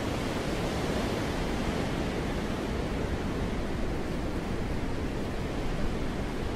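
Wind blowing steadily: a full, even rush of noise with no gusts or breaks.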